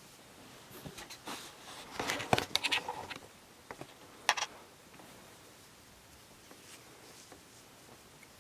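Hands and hair rustling and scratching right against the microphone, in a run of scratchy clicks about one to three seconds in, then one sharp click a little after four seconds.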